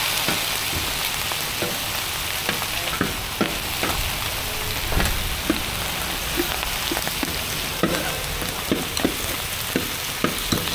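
Sanxian doupi frying on a large flat black griddle: a steady sizzle, broken by many irregular clicks and scrapes of a metal spatula cutting the slab into squares. It is fried slowly over low heat so the egg-and-bean skin crisps.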